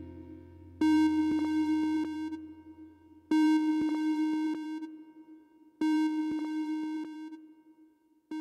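Synthesizer tone in a song's outro, struck four times about every two and a half seconds, each note fading away, with faint clicks inside the notes and a low hum that dies out partway through.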